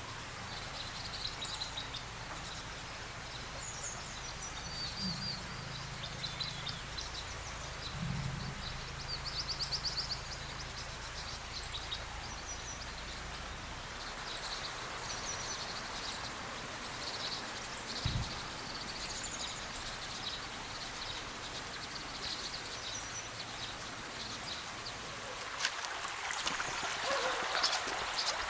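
Small birds chirping and singing over the steady rush of a mountain stream. A single thump comes about two-thirds of the way in, and a spell of clicking and rattling comes near the end.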